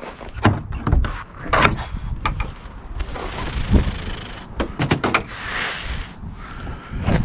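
Wooden door and metal latches of a homemade smoker being handled: a run of knocks and clunks, with two short stretches of rustling hiss in the middle.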